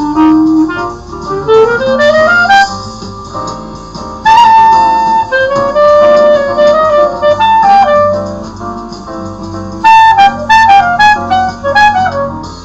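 Clarinet playing a jazz melody in a run of quick rising notes about two seconds in, then several long held notes and a falling phrase near the end.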